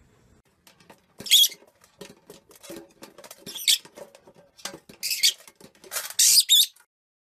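A small animal giving four short, high-pitched squeaks, spaced a second or two apart, amid light tapping and clicking.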